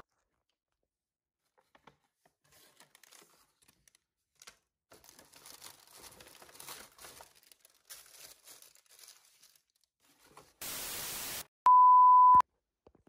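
A paper shopping bag crinkles and rustles faintly as a hand reaches into it. Near the end comes a brief burst of TV static, then a loud, steady test-tone beep lasting under a second: a colour-bar test-pattern sound effect.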